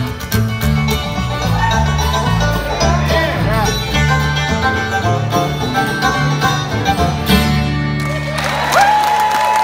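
Bluegrass band of fiddle, banjo, upright bass, acoustic guitar and mandolin playing the final bars of a song, which ends about eight seconds in. The audience then breaks into applause, with a long whistle over it.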